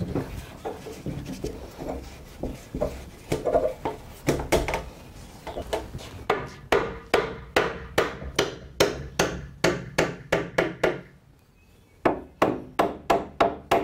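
Wooden mallet knocking the wedges into the through-tenons of a trestle table's legs and stretcher, tightening the joint. After some softer knocks and handling, sharp blows come in a steady run of about two and a half a second from about six seconds in, stop briefly, then start again near the end.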